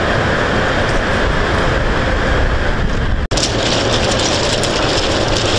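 Loud, steady rushing noise with no distinct voices, broken by a sudden cut about three seconds in, after which it carries more hiss.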